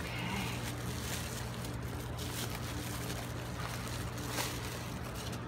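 Bubble wrap rustling and crinkling as hands unwrap it, with a few sharper crackles, over a steady low hum.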